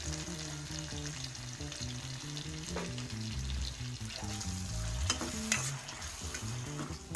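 Vegetables in soya sauce sizzling in a hot frying pan while being stirred with a steel ladle, with a few sharp clicks of the ladle against the pan about three and five seconds in.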